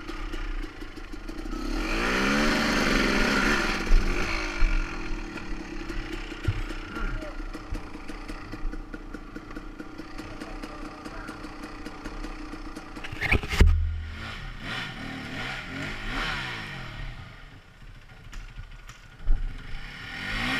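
KTM dirt bike engine revving up and down a few seconds in, then running at low throttle, with clattering over rough ground and one sharp knock past the middle.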